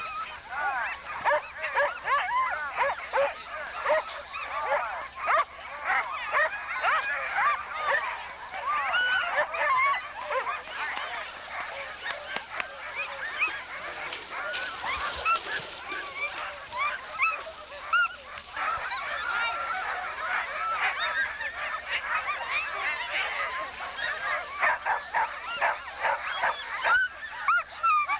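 Many sled dogs barking and yelping at once: a dense, continuous chorus of overlapping high yelps.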